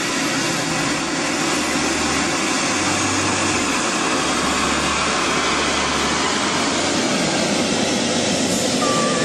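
Model jet turbine engines of a radio-controlled SR-71 Blackbird running, a steady, loud rushing jet noise.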